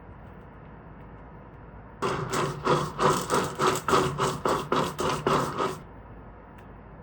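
A kitchen utensil working in quick, evenly spaced scraping strokes, about four a second, starting about two seconds in and stopping a little under four seconds later.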